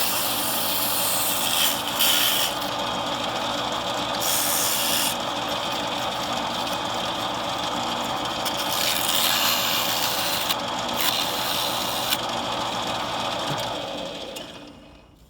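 A motor-driven chuck spins an injector-tube reamer while rust is scrubbed off it: a steady motor hum under a rough, scratchy rubbing. The scrubbing and the motor die away about a second before the end.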